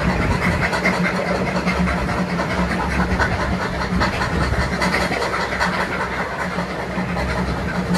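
A train running steadily, with a low hum under a continuous hiss and noise and no clear beat.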